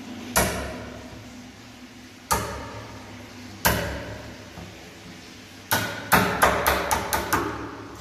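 Hammer blows: three single strikes a second or two apart, then a quick run of about eight strikes near the end, each with a short ringing tail.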